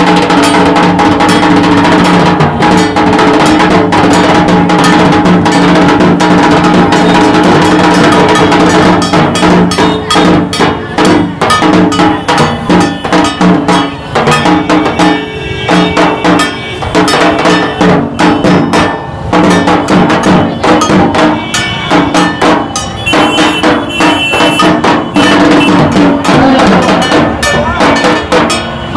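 Dhak drums beaten in a fast, dense rhythm, with steady held musical tones underneath. After about nine seconds the drumming comes with more gaps between strokes.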